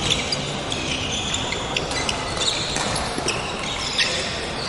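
Badminton rally: sharp racket strikes on the shuttlecock every second or so, with shoes squeaking on the wooden court floor.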